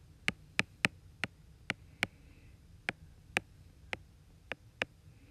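Stylus tip tapping and clicking against a tablet's glass screen while handwriting: a dozen or so sharp ticks at uneven intervals, roughly two to three a second.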